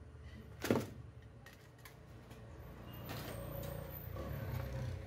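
A single sharp knock about a second in, then a low rumble that swells from about three seconds in and runs on.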